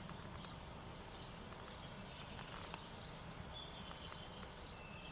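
Faint outdoor background noise with a low steady hum, and a run of short, high bird chirps at several pitches about three seconds in.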